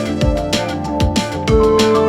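Background music: electronic backing track with held synth notes over deep, pitch-dropping drum hits.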